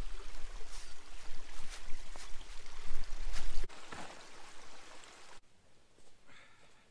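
Footsteps crunching through dry leaves beside a trickling creek, with a low rumble on the microphone. About four seconds in the sound cuts suddenly to a quieter, more distant scene with faint rustling footsteps in leaves.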